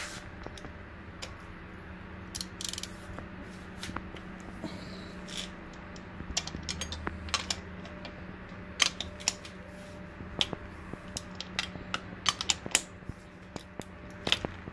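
Scattered light metal clicks and ticks of a ratchet wrench and spark plug socket being fitted and worked on the spark plugs of a BMW N62 cylinder head, busier in the second half, over a steady low hum.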